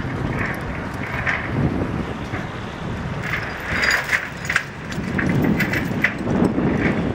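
Wind buffeting the microphone in uneven gusts over a low rumble from an approaching small push boat's engine.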